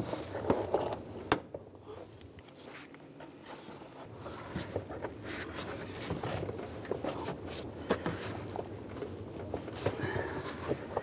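Plastic air-intake duct being worked into place over the throttle body by gloved hands: scattered rubbing, scraping and light clicks of plastic on plastic and rubber, with one sharp click about a second and a half in.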